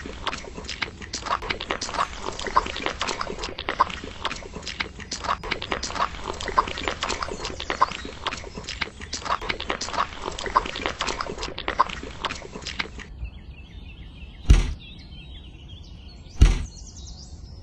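Small hand trowel scraping and smoothing wet cement, a dense run of wet scrapes and clicks. The scraping stops and two dull thumps follow near the end.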